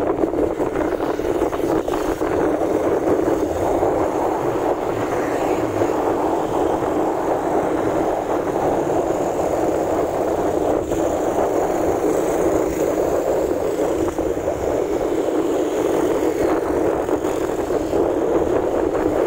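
Steady rush of wind buffeting the microphone on a motorcycle moving at road speed, with road noise mixed in.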